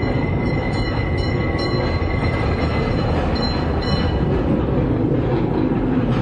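Trolley rolling along its rails with a steady low rumble. A thin high wheel squeal runs through the first three seconds, and a few short metallic clicks come over the first four.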